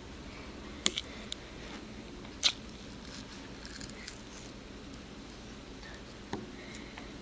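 Hands squeezing and kneading cornstarch-and-water slime in a glass bowl: quiet wet handling with a few short sharp clicks, the loudest about two and a half seconds in.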